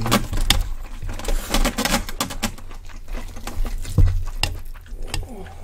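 A spoon clicking and scraping in a glass bowl as mixed bibimbap rice is scooped noisily, over close-miked chewing. A louder knock comes about four seconds in.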